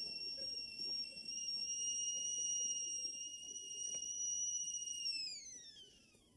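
Stovetop kettle whistling steadily at the boil. About five seconds in, the whistle slides down in pitch and fades away, as a kettle does when it comes off the heat.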